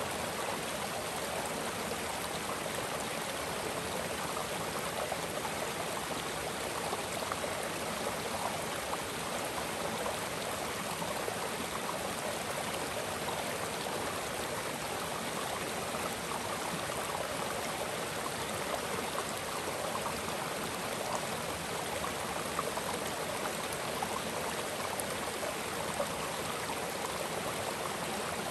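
Mountain creek flowing, a steady rushing of water.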